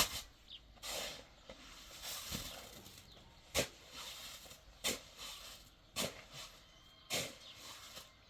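Sharp knocks repeated about once a second, five in all, with hissy scraping or rustling noise between them.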